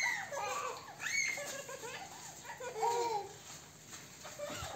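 Young children laughing and squealing, with a high squeal right at the start, another about a second in, and a lower laugh about three seconds in.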